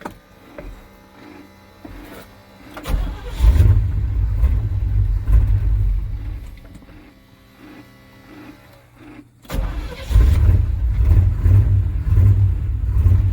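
The carbureted engine of a 1988 Chevy K2500 pickup, with a freshly rebuilt Edelbrock 650 carburetor, being started without choke. It catches about three seconds in, runs for a few seconds and falls away, then fires again near the ten-second mark and keeps running.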